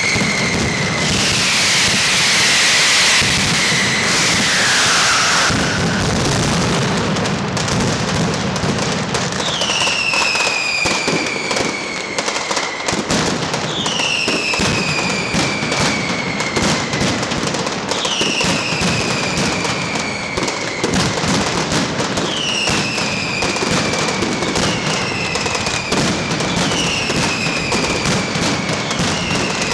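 Mascletà firecrackers crackling densely and without pause. In the first few seconds a loud hissing screech glides down in pitch. From about a third of the way in, a falling whistle repeats roughly every two seconds over the crackle.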